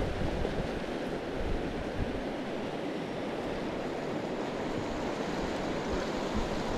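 River water rushing steadily as it spills over a low concrete weir, with light wind buffeting the microphone.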